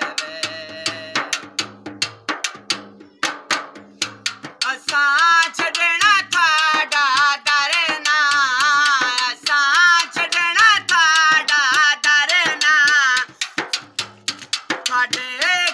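A male voice singing a Punjabi naat in a wavering, ornamented melody, over steady quick beats on a strap-hung, metal-shelled hand drum. For the first few seconds the drum carries on almost alone, then the singing comes in strongly about four and a half seconds in, stops briefly near the end and resumes.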